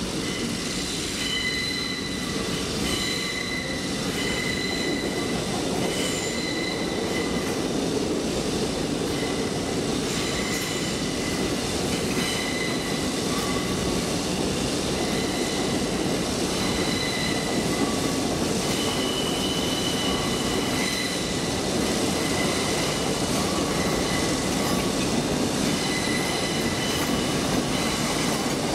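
Train moving through the station: a continuous rumble of wheels on rail, with short high-pitched wheel squeals that come and go.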